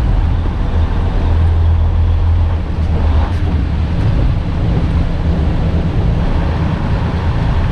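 Steady low drone of a semi-truck's diesel engine and road noise, heard inside the cab while driving.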